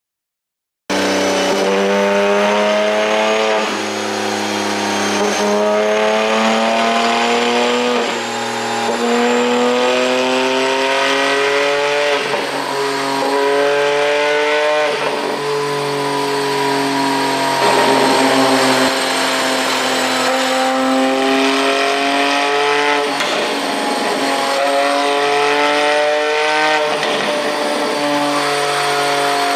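Porsche 718 Boxster GTS 4.0's flat-six engine pulling hard through the gears, starting about a second in: the pitch climbs in each gear and drops back at each upshift, over and over. Short crackles and pops from the exhaust come at the shifts, from an ECU tune made to pop.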